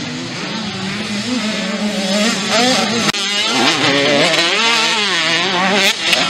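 Two-stroke 85cc youth motocross bikes racing, engines revving up and down in pitch as they corner and jump. The sound breaks off briefly a little after three seconds in and picks straight back up.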